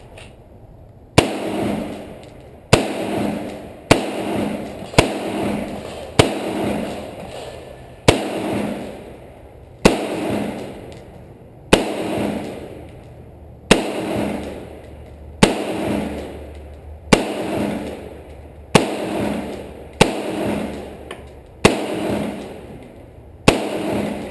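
Gunshots in slow, steady fire, about fifteen shots at roughly one every one to two seconds. Each sharp report is followed by a reverberating tail that dies away over about a second.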